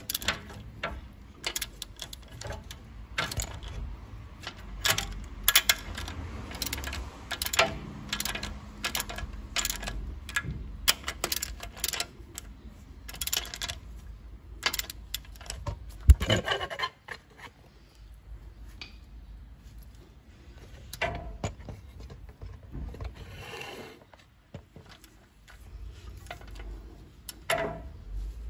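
Hand ratchet wrench clicking in irregular runs on a socket and extension while the steering-knuckle arm stud nuts are tightened, with metal-on-metal taps and scrapes. One sharp knock about halfway through; the clicking is sparser after it.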